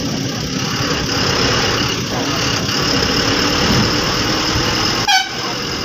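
Bus engine running at low speed, heard from inside the driver's cab, with a brief high chirp about five seconds in.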